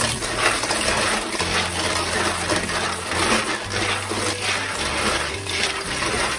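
Tap water running into a stainless steel bowl of blood cockles while hands stir and rub them, the shells clacking against each other and the bowl in many quick clicks. The cockles are being rinsed of mud and sand.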